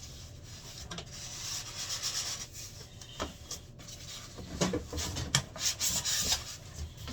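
Cardboard and packing material rubbing and scraping as a boxed cutting machine is worked out of its box, with a few sharper knocks in the second half.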